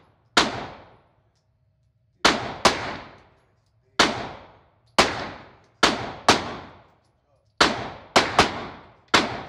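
Gunshots in an indoor shooting range: about eleven sharp reports at irregular intervals, several in quick pairs, each ringing off in the room for about half a second.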